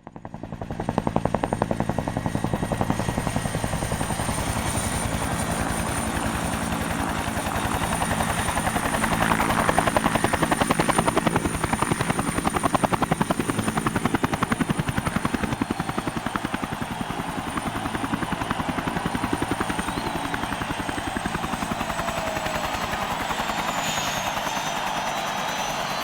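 Helicopter rotor blades chopping rapidly and steadily, fading in at the start, with a high turbine whine above that drops in pitch near the end.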